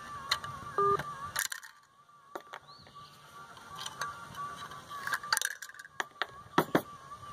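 Scattered sharp metal clicks and clinks of pliers working small copper choke coils out of a microwave magnetron's sheet-metal filter box.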